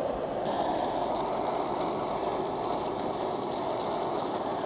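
Handheld propane torch flame burning with a steady hiss, held over melted mozzarella to brown it.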